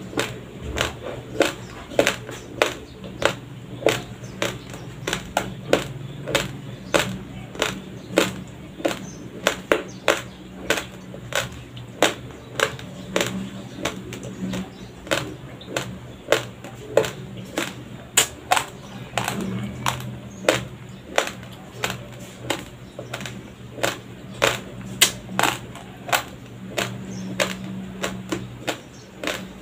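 Raw white rice being chewed close to a clip-on microphone: sharp, dry crunches of uncooked grains breaking between the teeth, about two a second in a steady rhythm.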